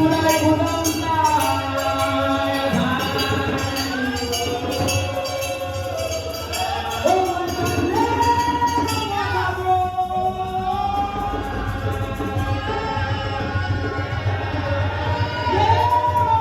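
Gospel church music: held keyboard or organ chords with singing voices over a steady percussion beat.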